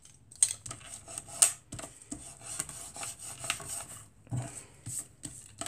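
A bone folder rubbed in irregular strokes over a paper layer on cardstock, pressing the taped layer flat: a dry, scratchy rubbing with a few sharper scrapes.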